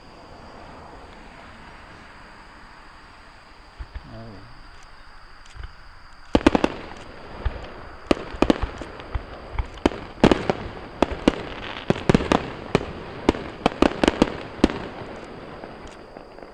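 Aerial fireworks volley: about six seconds in, a quick string of sharp bangs begins, several a second, and keeps going for about nine seconds. Underneath, crickets and other autumn insects keep up a steady shrill trill.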